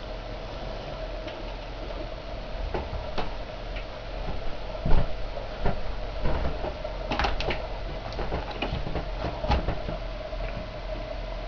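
Model train running on a layout: a steady motor hum with irregular clicks and knocks, busier from about four seconds in, with one louder knock about five seconds in.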